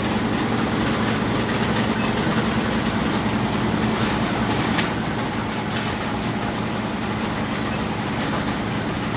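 Commercial bread-slicing machine running with a steady, fast mechanical rattle over a low hum, easing slightly about five seconds in, with a sharp click or two.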